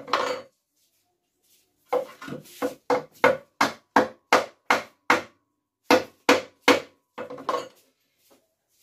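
Hammer driving nails into a broom handle to fix a broom head on, about three sharp blows a second with a short ring after each. The blows stop briefly twice in the second half.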